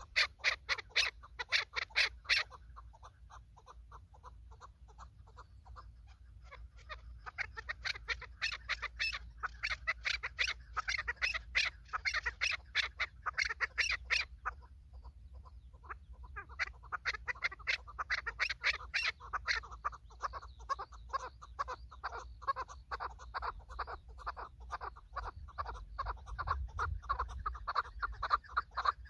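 Chukar partridges calling: long runs of rapid, repeated clucking notes, several a second, with a short pause about halfway through.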